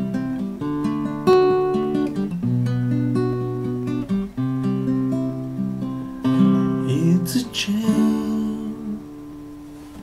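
Classical guitar playing the song's closing chords, a slow run of strummed and plucked chords each left to ring. The guitar fades out in the last second or so.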